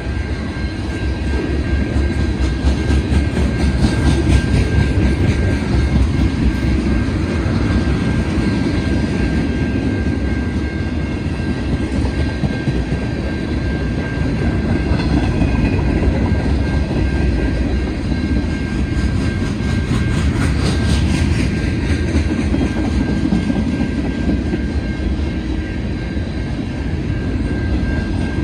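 Freight cars of a CN manifest train rolling past at a grade crossing: a loud, steady rumble of steel wheels on rail with a thin steady high tone over it. Clicking from the wheels picks up about four seconds in and again about twenty seconds in.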